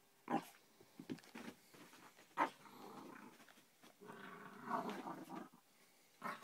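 Whippet–Jack Russell cross puppy growling in play while tugging and shaking a rope toy, with a few short sharp sounds and a longer growl in the second half.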